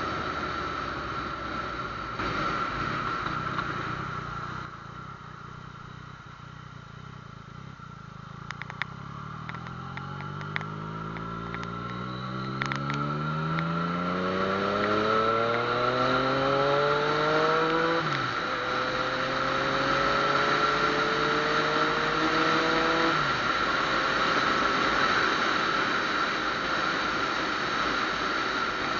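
Yamaha FZ-09's three-cylinder engine pulling away from low speed: after a quieter stretch the engine note climbs steadily, drops sharply at an upshift, climbs again and shifts once more, then settles into cruising under steady wind rush.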